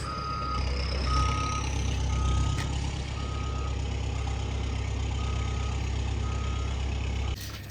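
Heavy machinery engine running steadily, with a backup alarm beeping about once a second. Engine and beeping cut off abruptly near the end.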